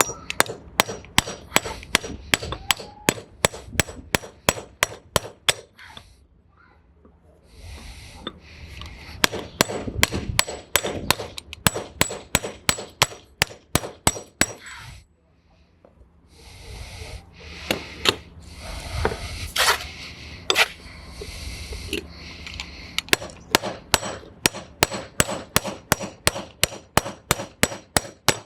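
Hammer striking a new splined wheel stud to drive it into a car's wheel hub: sharp metal-on-metal blows at about three a second in long runs, with two short pauses.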